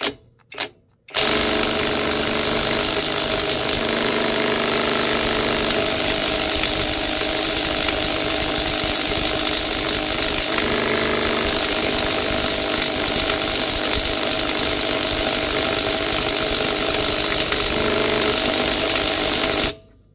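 Bauer brushless 3/8-inch cordless impact wrench hammering on a 30 mm trailer lug nut. It gives two brief blips, then runs without a break for about eighteen seconds and stops suddenly near the end. The nut does not break loose.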